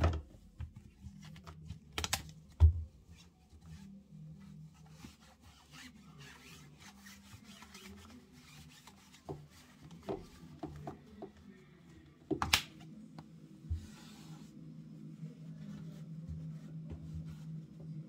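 A cloth rubbing and wiping a tumble dryer's plastic lint filter mesh and its housing, with a few sharp plastic knocks and clicks as the filter frame is pulled out and handled. The loudest knock comes about two and a half seconds in. A low steady hum runs underneath.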